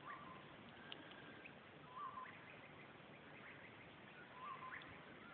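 Faint bird calls: one short call repeating about every two seconds, with scattered brief higher chirps, over a quiet background hiss.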